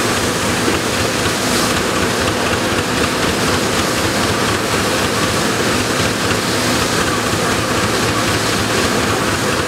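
Threshing separator running steadily under belt drive from a steam traction engine while the last sheaves are fed through it.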